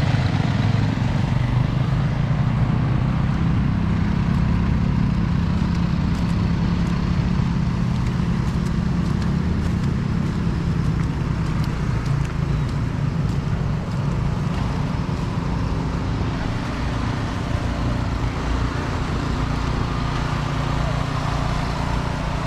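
Snowblower's small petrol engine running steadily and so noisy, a low hum that wavers slightly in pitch.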